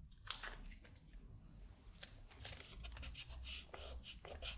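Blue masking tape being handled and pressed down by hand onto a circuit board: soft crinkling and rubbing, with a sharper crackle about a third of a second in.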